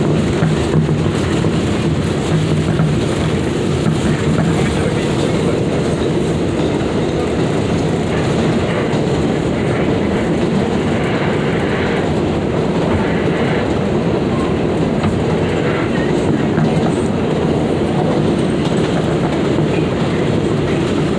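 New York City Subway 7 local train running between stations, heard from inside the car: a steady rumble of wheels on the rails.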